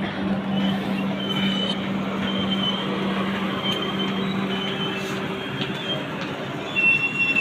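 Passenger train pulling into a station: a steady rumble with a low hum, and short high-pitched squeals recurring throughout. It grows louder briefly near the end.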